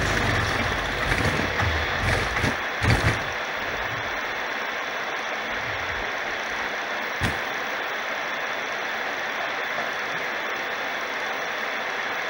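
Music with deep bass through a DIY rotary subwoofer ends about three seconds in, leaving a steady mechanical whirr and hiss, with a single click about seven seconds in.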